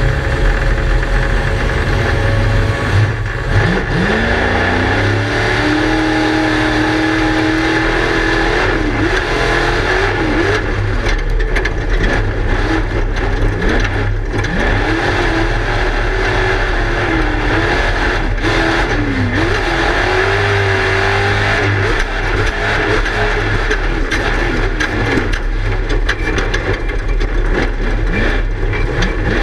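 Class 1 desert race car's engine heard from inside the car, climbing in pitch as it accelerates about four seconds in, then revving up and down as the car is driven hard off-road, with frequent knocks and rattles.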